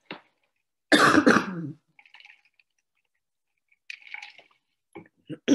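A single cough about a second in, short and loud. Faint small sounds follow.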